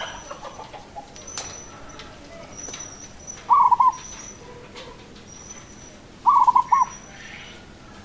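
Zebra dove (perkutut) cooing: two short phrases of quick, stuttering notes, the first about three and a half seconds in and the second after about six seconds. Thin, high chirps from a small bird repeat in the background.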